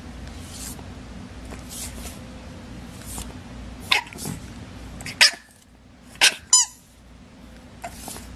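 Dog barking: four short, sharp barks in the second half, the last two close together.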